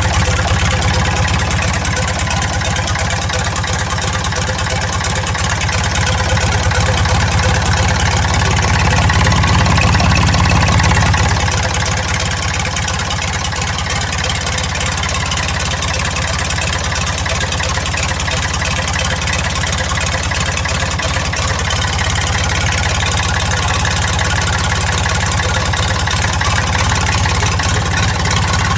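Ford 555's diesel engine idling steadily, freshly rebuilt and not yet up to temperature. It gets a little louder for a few seconds about a third of the way in.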